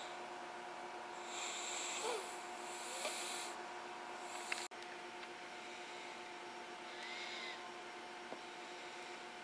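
A sleeping newborn baby breathing softly through the nose, three faint snuffly breaths a few seconds apart, over a steady low electrical hum.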